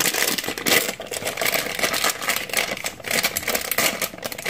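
Plastic bag of gingerbread cookie mix crinkling and rustling as hands pull at its top to open it: a dense run of crackles with a short lull about a second in.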